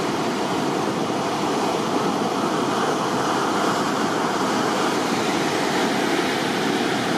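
Ocean surf breaking, a steady wash of noise with no separate crashes.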